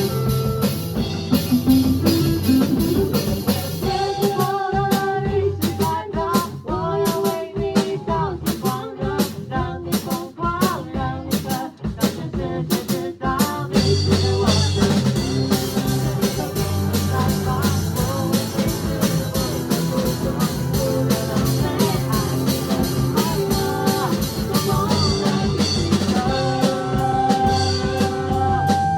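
Rock-style band music with a drum kit and guitar playing steadily; the texture gets choppier for a stretch in the first half, then settles back into a fuller, sustained sound.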